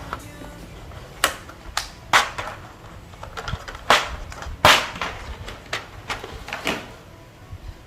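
Plastic keycap box and tray being handled and opened: a series of irregular sharp clacks and taps, about seven in all.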